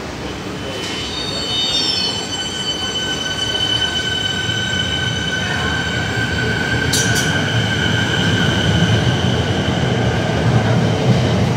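Siemens Nexas electric train pulling out of an underground station, its running noise building as it gathers speed. Its wheels give off steady high squeals throughout, and a brief hiss cuts in about seven seconds in.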